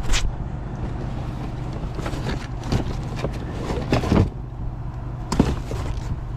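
Pieces of scrap metal hardware clanking as they are handled and dropped: several sharp knocks, the loudest just after the start, around four seconds in and near five and a half seconds. A steady low hum runs underneath.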